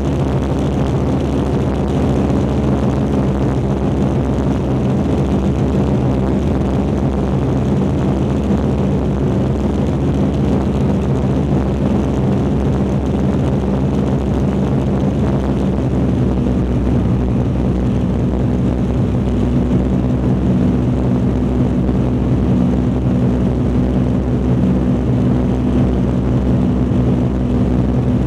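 Douglas DC-4's four Pratt & Whitney R-2000 radial engines and propellers at takeoff power, heard from inside the cabin through the takeoff roll and lift-off: a loud, steady drone.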